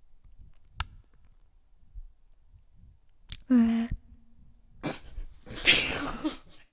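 A woman's short, squealing vocal noise about halfway through, made with her tongue out, followed by a few seconds of breathy, giggly sounds. A couple of sharp clicks come before it.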